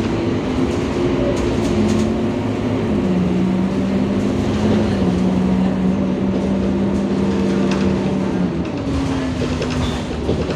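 Euro 4 Scania city bus's diesel engine and drivetrain running as the bus drives, heard from inside the passenger cabin: a steady whining note that drops to a lower pitch about three seconds in and shifts again near the end, over road rumble.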